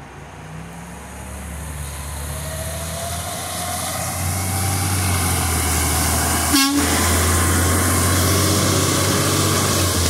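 Peterbilt 520 McNeilus front-loader garbage truck approaching and driving past, its engine running with a steady low hum that grows louder as it nears, with tyres hissing on wet pavement. A brief sharp click about two-thirds of the way through.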